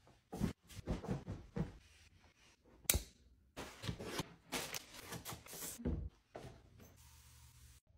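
Household tidying sounds: fabric rustling and a quick string of short knocks, rustles and clatter as things are handled and set down, with one sharp click about three seconds in.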